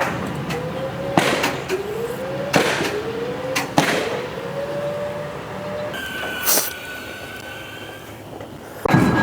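Nails being driven into wooden roof-truss framing: three sharp cracks about a second apart. Between them a machine whine rises in pitch.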